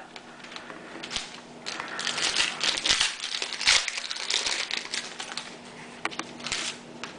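Plastic trading-card pack wrapper crinkling as it is handled and opened, in a dense run of crackles for a few seconds, then a shorter burst near the end.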